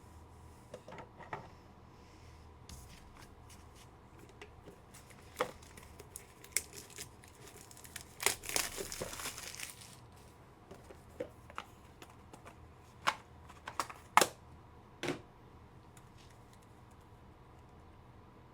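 Packaging being torn open and crinkled, densest about halfway through, among scattered clicks and taps of cards and cases being handled, with a few sharp clicks later on.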